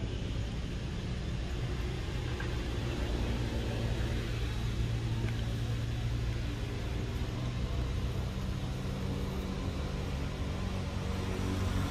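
Steady low engine hum running without a break, over a faint even hiss.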